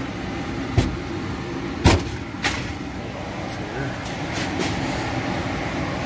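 Steady low hum of running HVAC equipment, broken by three sharp knocks in the first two and a half seconds, the loudest about two seconds in.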